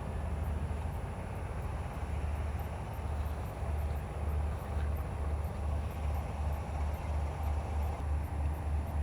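A steady, low, unevenly pulsing rumble under a hiss of outdoor noise.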